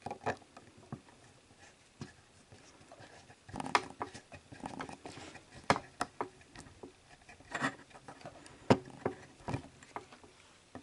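Small screwdriver turning tiny screws into the top plate of a Betamax video head drum: irregular sharp clicks and taps with faint scraping as the tip seats in the screw heads and the screws snug down against the metal.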